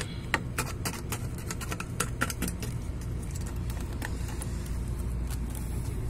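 Quick plastic clicks and taps as the cap and foil seal of a plastic jug of compressor oil are worked open with a screwdriver, thickest in the first couple of seconds and thinning out after, over a steady low hum.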